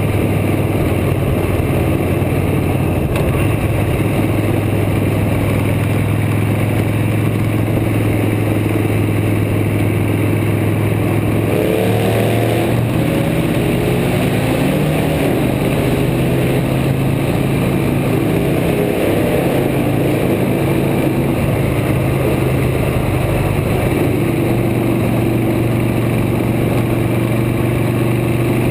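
Motorcycle engine running steadily at road speed, with wind and road rush on the microphone. About twelve seconds in the engine pitch shifts and wavers for several seconds, and it steps again near the end.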